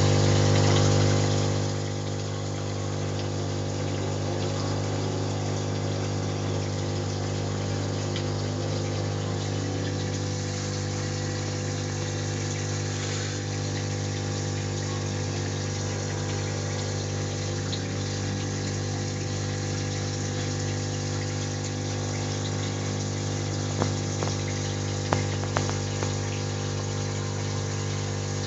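Aquarium pump humming steadily with water running behind it, and a few light clicks near the end.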